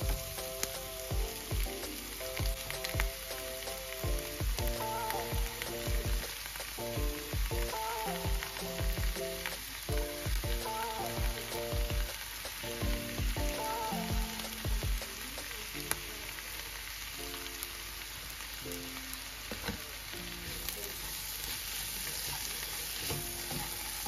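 Mussels, scallops and shrimp frying in oil with onions in a non-stick pan: a steady sizzle, with a wooden spatula stirring through it. Background music with a melody and a regular beat plays over most of it, stops about twenty seconds in, and leaves the sizzle alone.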